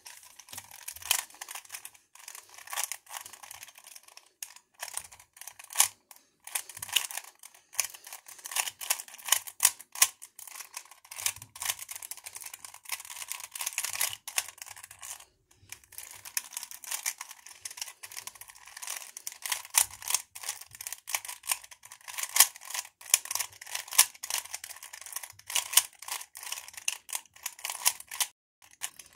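A plastic 3x3 Rubik's cube being turned fast by hand: rapid, irregular clicking and clacking of the layers as they rotate, with a brief pause about halfway through and another near the end.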